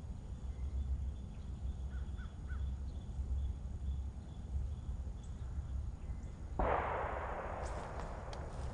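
Wind rumbling on the microphone while walking outdoors, with a few faint bird chirps. About two-thirds in, a sudden rush of noise fades over a second or so, then light crackling clicks of steps in dry leaves and twigs.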